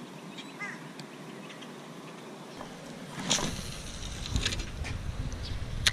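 Ducks quacking, with wind buffeting the microphone from about halfway through.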